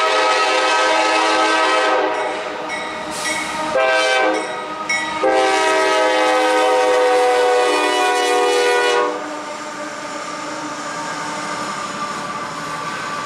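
Air horn of CSX 7252, a rebuilt GE CM44AC diesel locomotive, blowing for a grade crossing. A long blast breaks off about two seconds in, a short blast comes around four seconds, and a final long blast ends about nine seconds in. After that the lead locomotives roll past with a steady rumble of engines and wheels.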